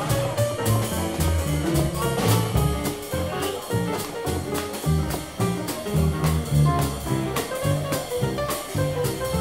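Swing jazz combo playing live: a piano plays runs of notes over upright bass notes stepping in the low end and drums keeping a steady swing beat on the cymbals.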